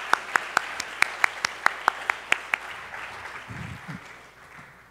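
Audience applause, with one person clapping close to the microphone at about five claps a second until a little past halfway. The applause then dies away, and near the end comes a low rumble of the handheld microphone being handled.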